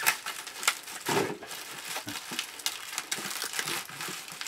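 Plastic bubble wrap crinkling and rustling in irregular crackles as it is cut and pulled away from a speaker, with a louder rustle about a second in.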